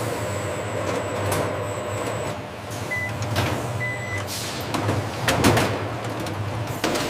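Processing-line machinery running: a steady low hum under irregular clatter and knocks, with two short electronic beeps about three and four seconds in.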